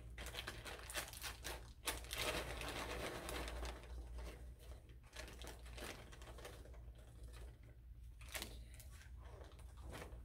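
Plastic zip-top bag crinkling and rustling in irregular bursts as whole pecans are dropped into it by hand, busiest in the first half.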